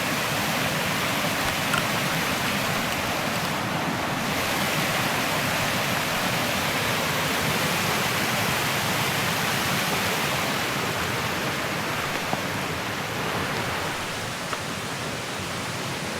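Mountain stream rushing: a steady, even rush of running water, a little quieter near the end, with a couple of faint clicks.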